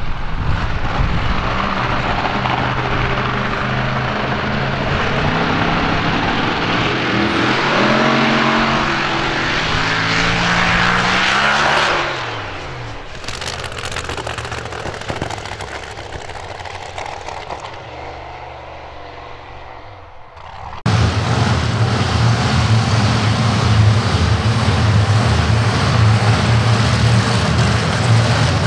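Supercharged V8 of a Lamborghini-bodied drag car accelerating hard down the strip, its pitch shifting, then fading as the car pulls away. About two-thirds of the way through it cuts abruptly to the engine loud and close, running with a steady low drone.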